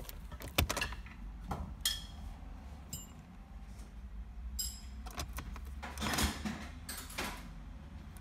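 Hand tools working on metal: scattered clinks and knocks, a few with a short metallic ring, and a rasping scrape about six seconds in.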